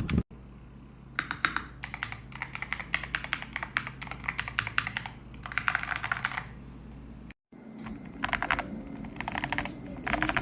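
Typing on a Zifriend ZT104 gasket-mount mechanical keyboard with silver switches: quick runs of key clacks in bursts, with short pauses between them and a brief dropout partway through.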